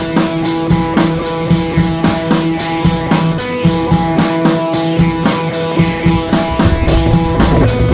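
Background music: a rock track with drum kit and guitar, steady beat.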